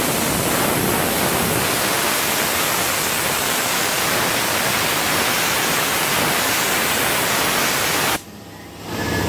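Handheld compressed-air spot sandblaster blasting rust from a car roof's edge: a steady hiss of air and abrasive grit. The hiss cuts off about eight seconds in and starts again under a second later.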